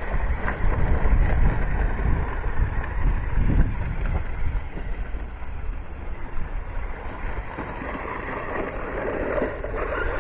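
Wind rumbling on the microphone over the running of a Flytec 8897 1/12-scale RC truck's electric motor and metal gears as it drives across wood-chip mulch.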